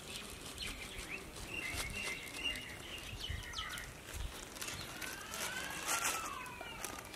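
Birds chirping and calling in short, curving notes, with a louder arching call about six seconds in.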